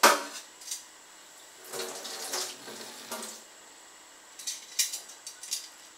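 Water splashing in a stainless steel kitchen sink as a plastic colander is handled, with a sharp knock right at the start and a few light clatters near the end.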